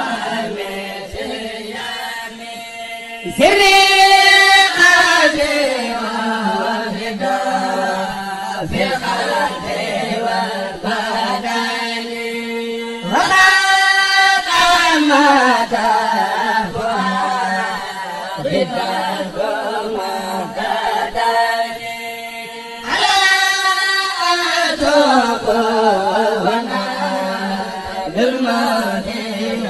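A Mouride kourel, a chanting group, sings a xassida religious poem in unison without instruments. It is a slow melody of long held notes. About every ten seconds the group comes in louder on a high note, and the phrase then falls away.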